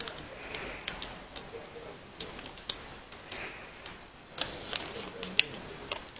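Irregular light clicks and ticks, a few a second and unevenly spaced, over a faint background hiss; the sharpest click comes a little past five seconds in.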